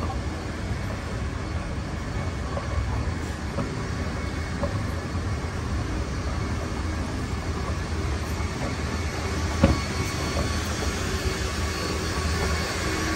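Escalator running: a steady low mechanical rumble from the moving steps and drive, with faint steady high tones over it. A single sharp click comes near the ten-second mark.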